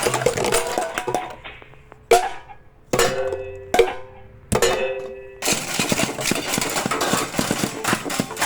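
Early sound-cartoon soundtrack of music and sound effects: a clattering crash, then four sharp hits about a second apart, each followed by a ringing two-note tone, then a long rattling clatter near the end.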